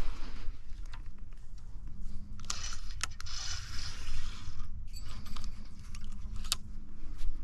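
Crunching and scraping handling noises, with a few sharp clicks over a low rumble.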